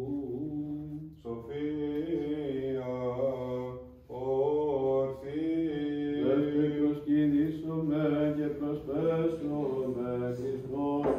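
Orthodox liturgical chant: voices singing a slow, ornamented melody over a low held drone note. The phrases break briefly for breath about one and four seconds in.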